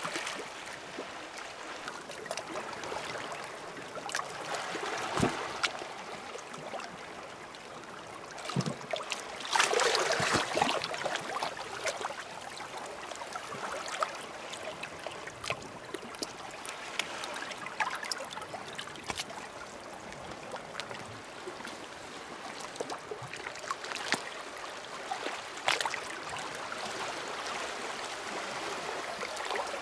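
Small waves lapping and trickling among rocks and pebbles at the water's edge, with scattered small clicks and a louder wash about ten seconds in.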